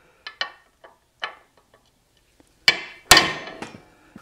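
A ball-peen hammer strikes a steel 18 mm socket used as a drift to drive needle bearings out of a motorcycle swing arm. First come a few light metallic clinks, then two sharp metal-on-metal blows about half a second apart near the end, each with a short ring.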